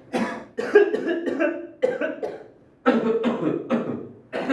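A person coughing again and again, a run of short coughs separated by brief pauses.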